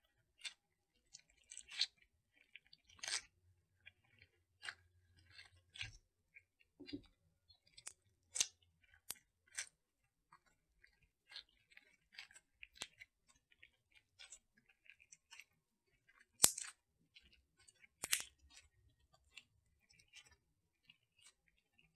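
Black glitter slime with clay mixed in being kneaded and squeezed by hand, giving faint, irregular sticky clicks and pops, with two louder pops a little after the middle.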